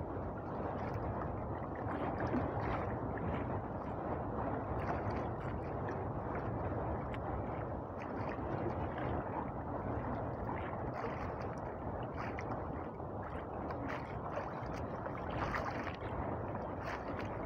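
Steady rushing and sloshing of sea water against the hull of a small fishing boat.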